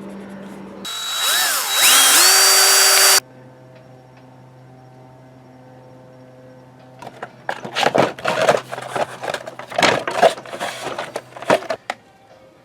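A small motor whine rising quickly in pitch and then holding steady, cut off suddenly about three seconds in. A low steady hum follows, and from about seven seconds in there are irregular loud clattering bursts.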